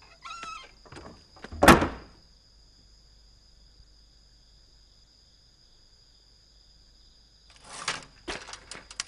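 A wooden door slams shut once with a loud bang a little under two seconds in. Near the end a manual typewriter's keys clack in a quick run.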